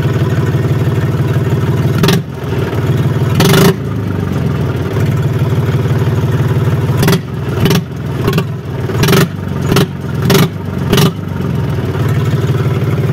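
Mahindra 275 DI XP Plus tractor's three-cylinder diesel engine running with its silencer removed, straight from the open exhaust pipe. It runs steadily at first, then revs once about three and a half seconds in, and near the end gives a run of about seven quick throttle blips, each a sharp bang like firecrackers going off.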